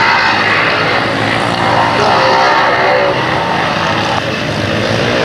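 A pack of solo grasstrack racing motorcycles with single-cylinder engines, running hard round the track. It is a loud, continuous engine noise made of many overlapping engine tones that shift a little in pitch as the riders go.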